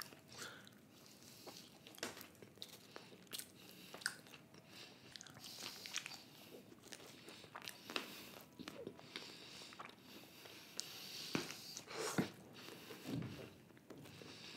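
A person chewing a bite of paneer-topped pizza close to the microphone, with scattered soft crunches and clicks of the crust.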